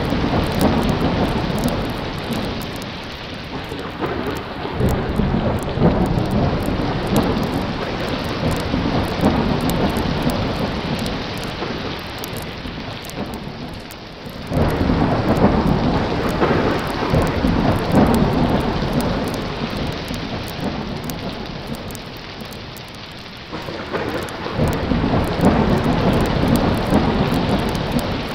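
Thunderstorm: steady heavy rain with rolling thunder. A loud rumble breaks in suddenly about halfway through and again near the end, each fading slowly.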